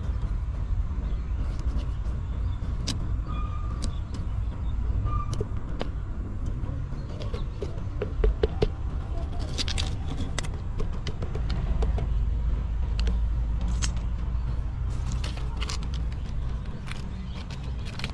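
A knife cutting into the rind of a green papaya, heard as scattered small clicks and short scrapes, over a steady low rumble.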